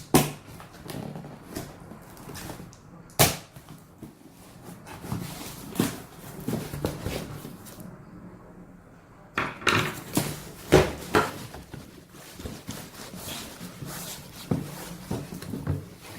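Cardboard box and plastic-bagged parts of a cordless vacuum cleaner being handled while unpacked: scattered knocks, scrapes and rustling, with sharper knocks about three seconds in and again around ten to eleven seconds in.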